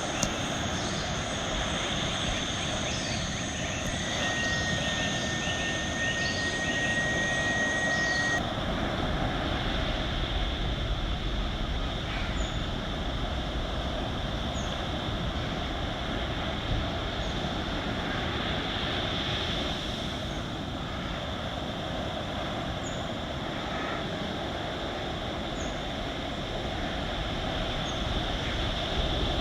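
Coastal wildlife ambience: a steady low rush under insects trilling and repeated short chirps. A thin steady tone sounds from about four to eight seconds in, and at about eight seconds the highest trill stops and the low rush grows.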